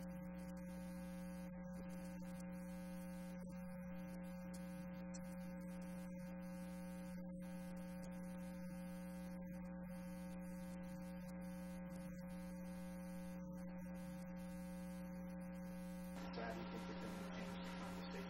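Steady electrical mains hum, a buzzy drone that does not change; a faint hiss joins it near the end.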